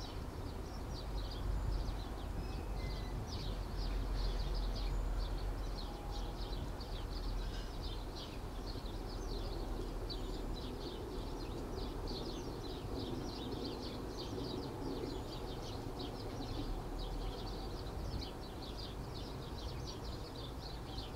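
Small birds chirping rapidly and continuously, many short chirps a second, over a low steady background rumble.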